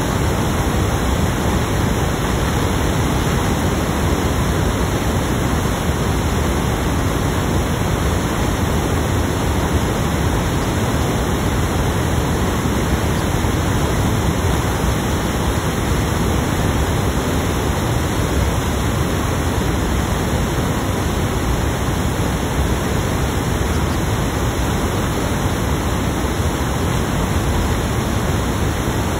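Loud, unchanging static hiss from a recording fault, with no voice to be heard through it.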